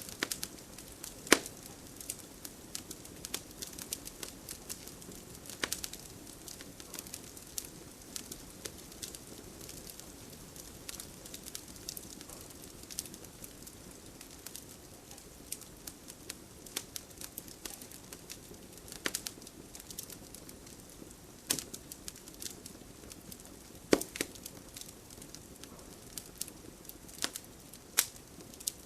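Fire in a fireplace crackling steadily, with frequent small ticks over a low hiss and a handful of louder sharp pops, about a second in, near six seconds, and several times in the second half.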